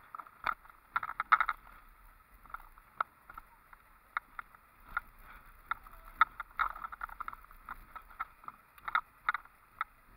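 Irregular rattling and knocking from a vehicle jolting along a rough road, heard from inside, over a faint steady road noise.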